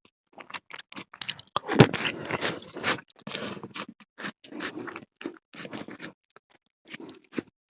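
Someone eating fruit salad with cheese close to the microphone: irregular scraping and chewing sounds in many short clicks, with one sharp click about two seconds in.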